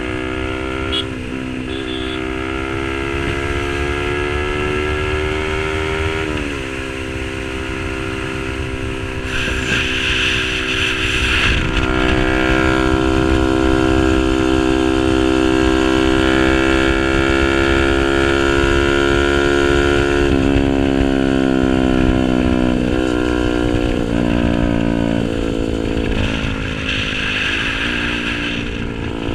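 Yamaha R15 V3's single-cylinder engine through a tuned SC-Project exhaust, ridden under way. The note climbs slowly and drops sharply at gear changes, about six seconds in and several times in the last ten seconds.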